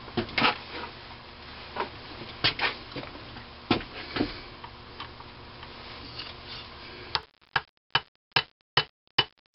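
Small steel parts clicking and clinking as they are handled on a workbench, then, about seven seconds in, a small hammer giving about seven quick, light, sharp taps on a steel key, starting it into the keyway of the cam on a McCormick-Deering Type M engine's crankcase side plate.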